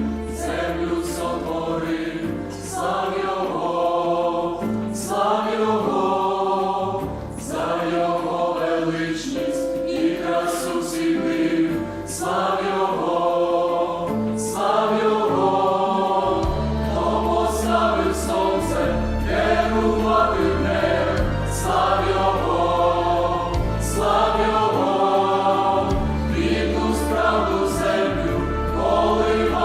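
Youth choir singing a Christian hymn in several voice parts, with a deep sustained bass line underneath.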